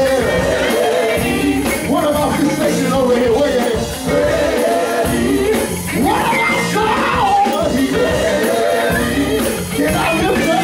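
Live gospel group singing into microphones over a band of electric bass, drum kit and keyboard.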